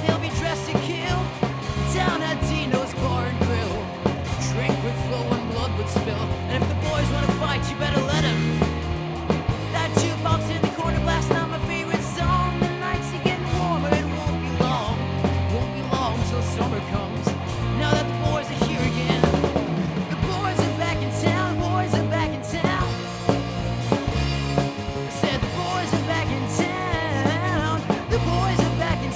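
Rock band playing an instrumental passage: a wavering lead line over a steady bass and drum kit.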